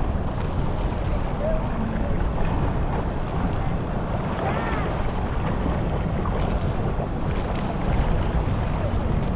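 Steady wind buffeting the microphone, a low rumble with the wash of sea surf beneath it.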